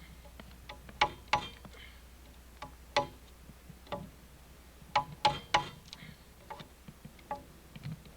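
Sharp, ringing knocks of a tool striking during log-notching work on a log wall, coming singly or in quick groups of two or three with gaps of a second or more between them.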